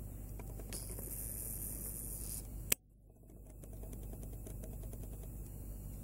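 Olympus SZ-30MR compact camera's zoom lens motor, picked up by its built-in microphone: a faint high whine lasting under two seconds, then a sharp click. After the click the sound briefly drops out and comes back, followed by a run of soft ticks over a steady background hiss.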